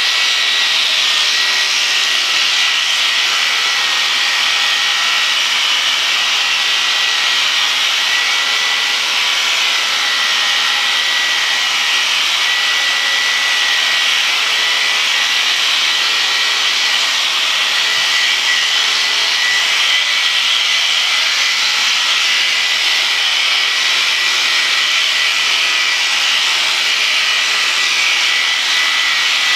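Corded electric sheep shears running steadily as they clip through a ram's wool, a constant high buzz with a steady whine.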